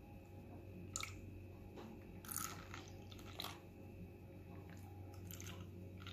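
Agar jelly mixture being poured from a jug into a plastic mould: a handful of faint drips, small splashes and sharp little taps, over a low steady hum.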